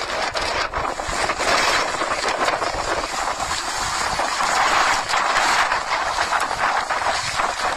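Typhoon wind blowing hard against a phone's microphone: a loud, steady rushing noise that keeps going without a break.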